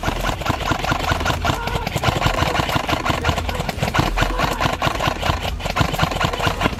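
Airsoft electric rifle (AEG) firing on full auto: a fast, continuous stream of shots with the gearbox cycling.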